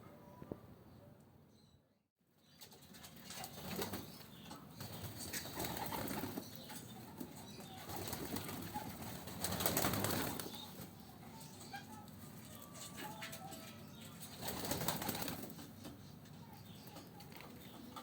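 Homing pigeons flapping their wings in several bursts, with some cooing. The sound drops out briefly about two seconds in.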